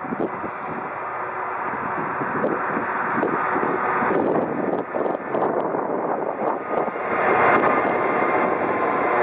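Class 66 diesel-electric locomotive accelerating under power, its EMD two-stroke V12 diesel engine running hard. The engine grows steadily louder as the locomotive approaches and draws level near the end.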